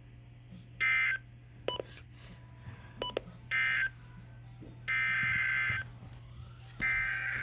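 Emergency Alert System SAME data bursts: four buzzy bursts of digital shift-keyed tones, the last two longer than the first two, marking the end of one weather-radio warning and the start of the next. A steady low hum runs underneath.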